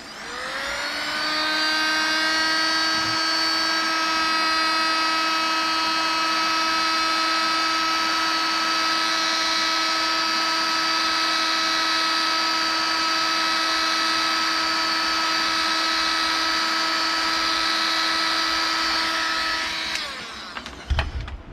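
Heat gun running with a steady, high motor whine. It spins up in pitch over the first second, holds steady, and shuts off about a second and a half before the end.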